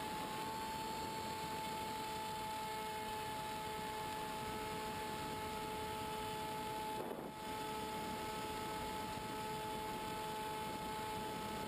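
Onboard sound of a Multiplex EasyStar electric RC plane in flight: the steady whine of its motor and propeller over wind rush, dipping briefly about seven seconds in.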